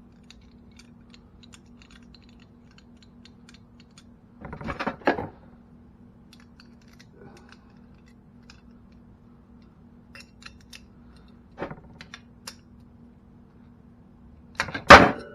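Light metallic clicks and clanks from hands fitting and handling mounting parts and tools. A louder rattle comes about four and a half seconds in and a couple of sharp knocks near the end, all over a steady low hum.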